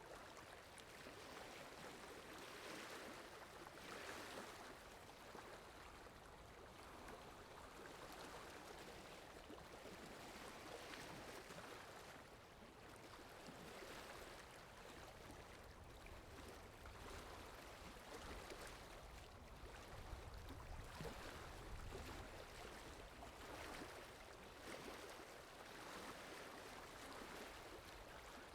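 Faint water lapping in soft, irregular swells every second or two, with wind adding a low rumble that is strongest in the second half.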